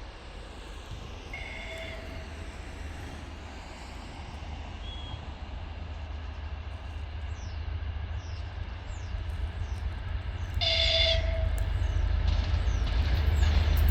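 TEP70BS diesel locomotive with its 2A-9DG-02 diesel generator approaching with a passenger train, its low rumble growing steadily louder. Two short horn blasts sound, one about a second and a half in and one near the end.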